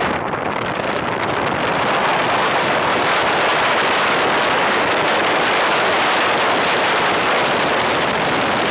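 Steady rush of wind over the microphone of a moving motorcycle, blended with road noise.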